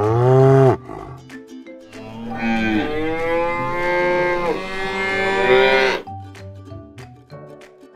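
Cows mooing: a short moo in the first second, then a long, drawn-out moo lasting about four seconds, over light background music.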